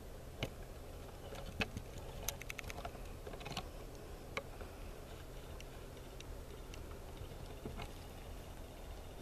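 Scattered small clicks and ticks, with a quick run of them about two seconds in, over a low steady rumble.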